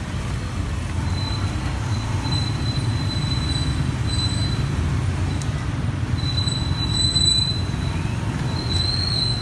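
Steady low background rumble with a faint high-pitched whine that comes and goes.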